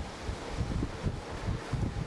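Gale-force storm wind buffeting the microphone in irregular low gusts, over a steady rushing hiss of wind.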